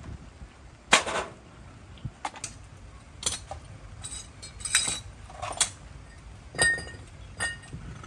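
Metal tools and parts clinking and knocking together as they are handled: about eight irregular sharp strikes, some ringing briefly, the loudest about a second in.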